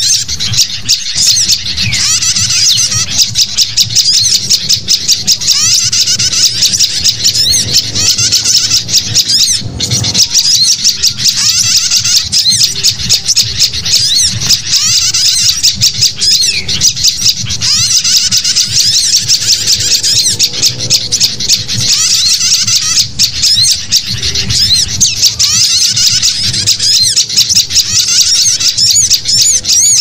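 Bird-lure recording of sooty-headed bulbuls (kutilang) calling in noisy, agitated chatter, mixed with sunbird and prinia calls. It is a dense, unbroken tangle of rapid high calls, the kind of track played to draw other small birds in.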